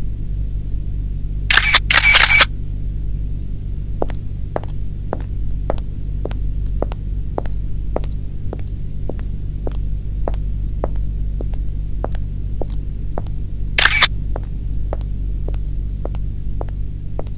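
High heels clicking on a hard floor in an even walking rhythm, about two steps a second, over a steady low drone. About two seconds in, a rapid burst of camera shutter clicks, and another short one near the end.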